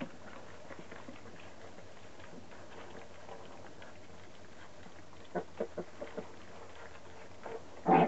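Puppies eating together from a shallow pan: faint clicks and patter of mouths and paws at the pan, with a quick run of sharper clicks about five seconds in and one loud short sound at the very end.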